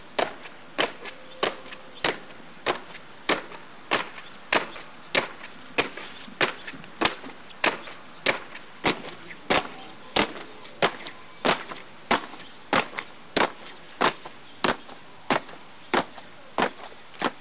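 Soldiers' boots stamping in step on hard ground in a drill march, a sharp regular beat of about one and a half stamps a second.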